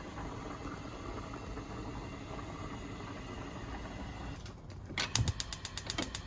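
A steady low hiss, then, near the end, a quick run of about a dozen sharp clicks or taps at roughly ten a second, lasting just over a second.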